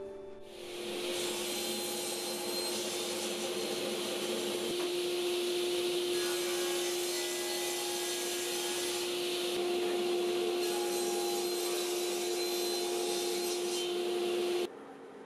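Sliding table saw running with a steady whine as it cuts walnut boards, blade noise and cutting hiss together. The sound cuts off suddenly near the end.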